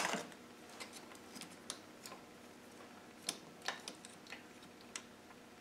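Faint, irregular metallic clicks and ticks, about a dozen in all, as a thin steel tool is worked against the selector parts of a Land Rover R380 gearbox to turn the selector.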